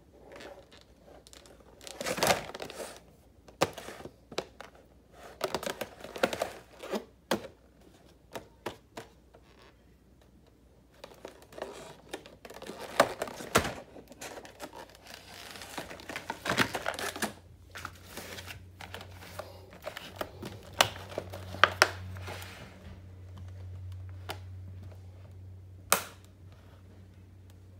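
Rigid plastic blister packaging of tool sets being handled: irregular crinkling and clicking of the plastic as the packs are gripped and turned, with one sharp click near the end.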